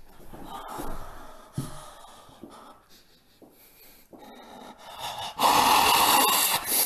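A man breathing heavily and raggedly, then from about five and a half seconds in a loud, hoarse scream.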